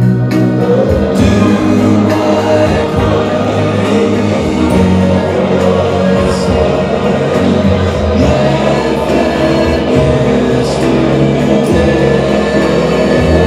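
A song with singing played loud through two speakers at once: a vintage Realistic portable cassette player-radio and a JBL Xtreme 3 Bluetooth speaker.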